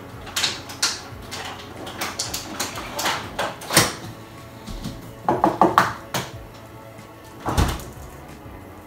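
Rummaging in an open refrigerator: irregular clicks and knocks of containers being moved, a quick run of ringing clinks about five seconds in, and a heavier thud near the end as the fridge door shuts.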